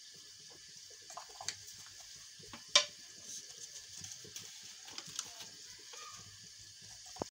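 Faint steady sizzling hiss of food cooking on the stove, with light clicks of a spoon in a steel mixing bowl and one sharp click a little under three seconds in.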